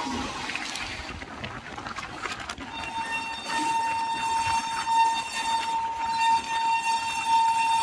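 Locomotive horn sounding one long, steady, shrill note that starts about two and a half seconds in and is still held at the end, over the rolling noise of the moving train.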